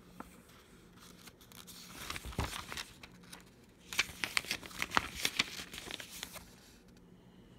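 Paper pages of a booklet manual being turned and handled: a soft rustle about two seconds in, then a louder run of crisp paper crackles and flaps for about two seconds.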